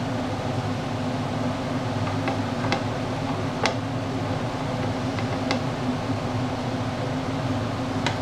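A wooden spatula stirring ground meat in a frying pan, giving a few light clicks against the pan, over a steady hum and hiss.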